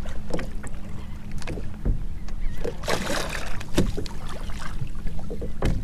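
Water lapping and slapping against a kayak's hull on choppy water, with scattered knocks on the boat and a brief louder rush about three seconds in.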